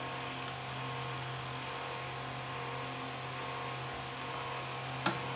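Steady low electrical or machine hum with background hiss, and a single sharp click near the end.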